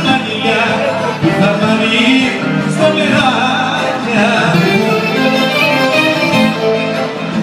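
A live band on stage playing a Greek popular song.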